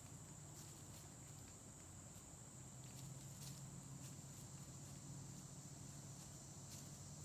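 Near silence outdoors: a faint steady high-pitched drone and a low hum, with a few faint light ticks.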